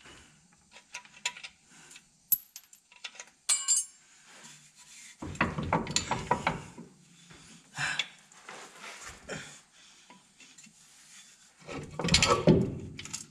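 Metal tools clinking, then scraping and knocking as a 30/30 air brake chamber is worked loose by hand on a truck's drive axle, loudest about five seconds in and again near the end.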